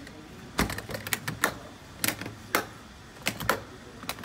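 Hard plastic rifle case being shut: the lid knocking down and its latches snapping closed, a scatter of sharp clicks and knocks, some in quick pairs.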